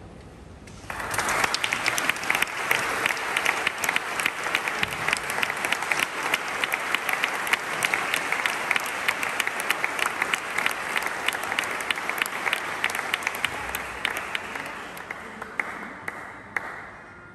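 Audience applauding: dense clapping breaks out about a second in and carries on steadily, then thins out and dies away near the end.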